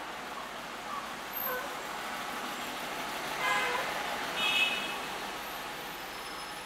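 Steady background noise like distant traffic, with two short pitched toots about a second apart near the middle, the second one higher.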